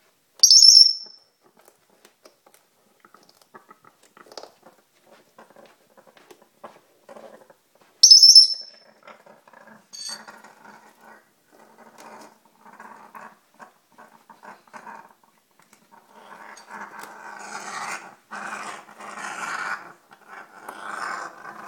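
African grey parrot growling: faint, low rasping growls that grow louder over the last five seconds or so. Two sharp, high squeaks cut in, about half a second in and about eight seconds in.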